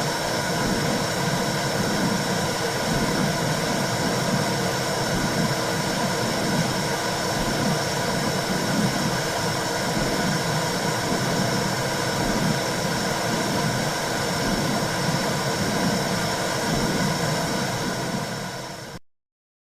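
Womb-sound recording for soothing a baby: a steady whooshing noise with a slow, regular low pulse, cutting off abruptly near the end.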